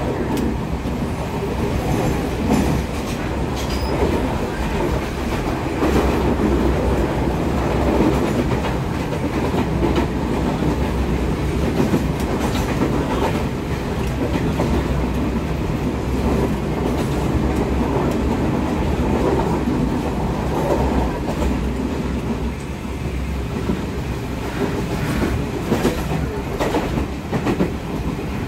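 Passenger train running along the rails, heard from inside the carriage: a steady low rumble of wheels and running gear, with irregular clicks and knocks from the wheels on the track.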